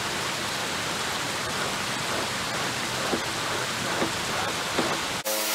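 A deer hide being pulled and worked by hand to soften it as it dries, with a few short slaps of hide about three, four and five seconds in, over a steady rushing hiss. Just before the end the sound cuts abruptly to a steady hum.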